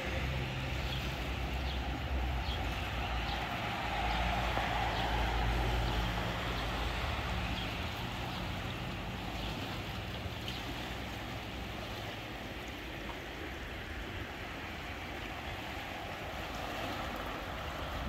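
Fast-flowing river in spate rushing under a low footbridge: a steady hiss of churning water. A low rumble underlies it in the first half and then fades.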